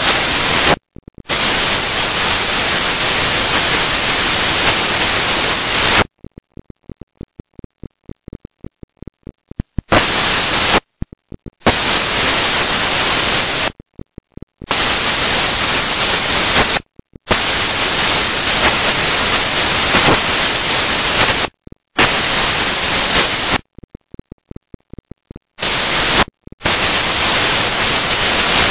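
Loud white-noise static hissing evenly across all pitches, cutting out abruptly again and again, with long stretches where it stutters on and off rapidly.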